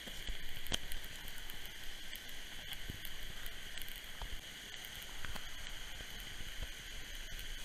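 A thin jet of water spraying onto burning cardboard: a steady hiss with scattered small crackles and clicks.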